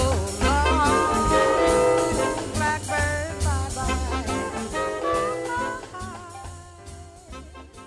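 A jazz band plays the instrumental closing bars of a song, dying away toward the end.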